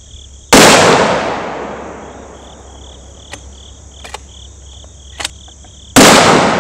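Two unsuppressed shots from a 6.5 Creedmoor Aero Precision Solus bolt-action rifle, about five and a half seconds apart. Each is a sharp report followed by a long rolling echo. A few faint clicks fall between the shots, over steady insect chirping.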